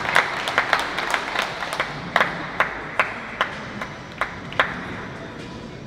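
A small group clapping: dense applause at first that thins out to a few scattered claps and dies away about five seconds in.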